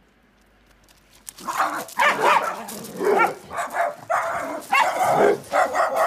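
Guard dogs barking repeatedly, breaking out about a second and a half in, in rapid, overlapping barks.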